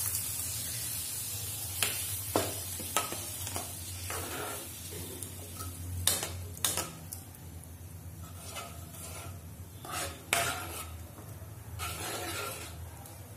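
Steel spoon stirring thick spinach purée into a simmering gravy in a metal kadai, with irregular sharp clinks and scrapes against the pan over a low sizzle.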